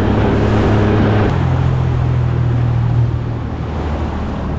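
Boat's outboard motor running under way; about a second in, its pitch drops to a lower, steady note as it is throttled back.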